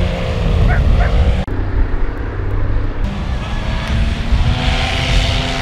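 Paramotor engine and propeller running in a steady drone as it flies low overhead, with heavy wind rumble on the microphone.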